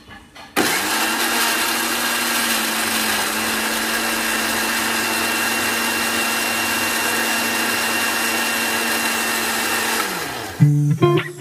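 Panasonic MX-GM1011 blender switched on about half a second in, its motor running steadily at one pitch while it purées chunks of dragon fruit. It is switched off near the end, and its pitch falls as it spins down.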